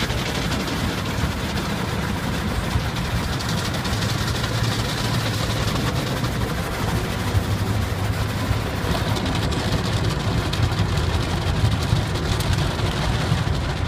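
Automatic car wash water jets spraying against the car, heard from inside the cabin as a steady dense hiss over a steady low hum.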